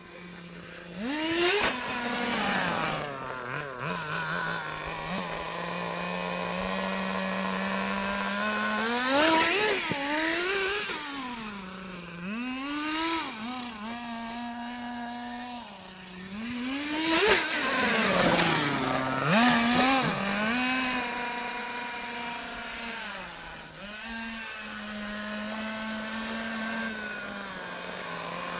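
Small nitro glow engine of a 1:8 Kyosho USA-1 RC monster truck running, idling at a steady high buzz and revving up and back down several times as the truck drives.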